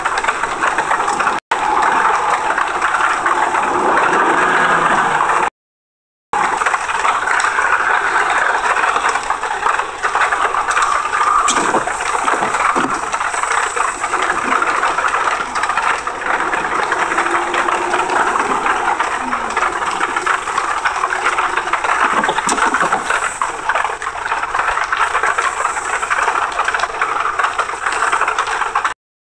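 Steady engine and road noise of a 2003 Honda Accord's 3.0 L V6 heard while driving, a constant rushing sound. The engine is throwing misfire codes (P0300–P0306). The sound cuts out briefly about six seconds in.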